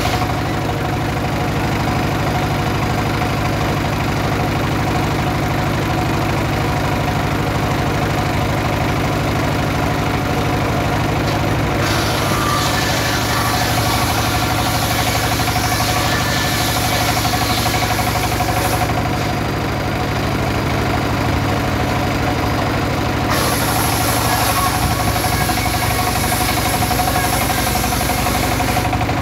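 Single-cylinder diesel engine running steadily, belt-driving the circular blade of a homemade sawmill. The blade cuts into a teak log twice, from about twelve seconds in to about nineteen and again from about twenty-three seconds to near the end, adding a high hiss over the engine.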